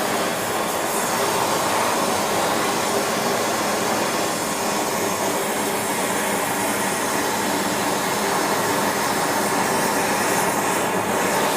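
Gas-and-air burner running with a steady roar, heating a puddle of molten silver for pouring.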